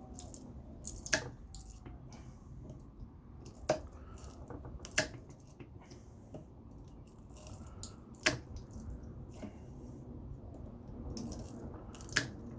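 Wire-cutter pliers snipping and pulling out pieces of copper, with five sharp snaps spread unevenly through the stretch and light metal scraping and ticking between them.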